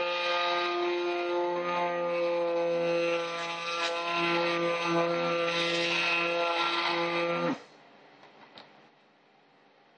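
Electric stick blender running steadily in a bucket of cold process soap batter, a constant motor whine, switched off suddenly about three-quarters of the way through; a few faint small knocks follow.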